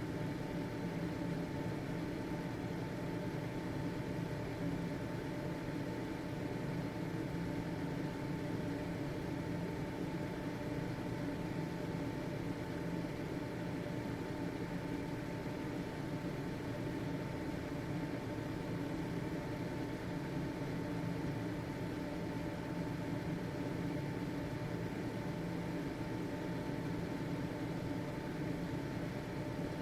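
Household ventilation fan running steadily: an even whirr of air with a constant motor hum and a faint steady whine.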